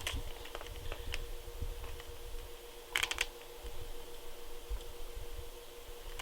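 Light clicks and knocks of a plastic airsoft pump shotgun being turned over in the hands, with a quick cluster of clicks about three seconds in.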